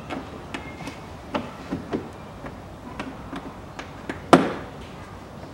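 Plastic front wheel-arch liner being handled and its plastic push clips pressed into place by hand: a string of light clicks and taps, with one much louder snap about four seconds in.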